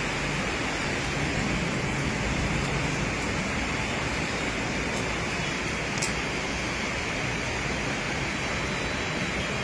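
Steady rushing of water from a torrential downpour and floodwater, an even hiss with no let-up, and a faint click about six seconds in.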